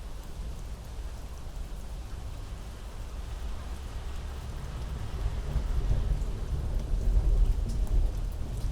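Steady rain falling with thunder rolling in: a low rumble builds from about five seconds in and grows louder toward the end.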